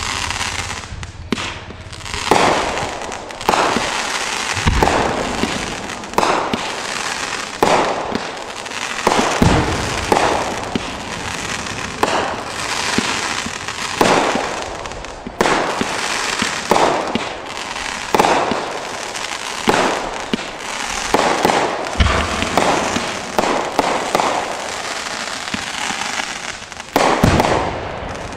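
Aerial fireworks display going off in rapid succession: sharp bursts every second or two over continuous crackling, with a few deeper booms between them.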